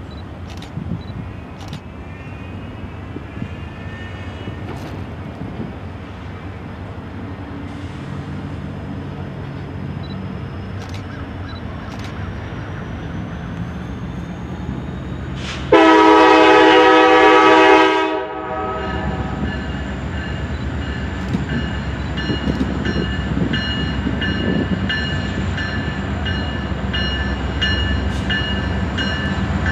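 Norfolk Southern diesel freight locomotive's horn sounding one long blast of about two and a half seconds, the loudest sound, over a steady background rush. After the blast the low rumble of the approaching locomotive grows, and a high repeating ding joins in.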